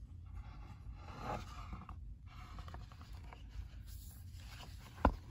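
Quiet paper rustling as a picture-book page is turned by hand, with one sharp tap near the end.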